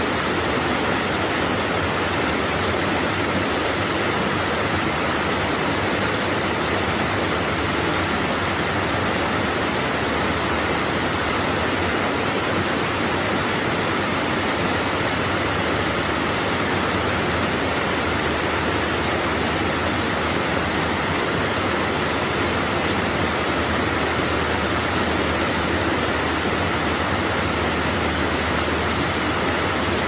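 Small garden waterfall cascading over stacked stone ledges into a pool: a steady, unbroken rush of splashing water.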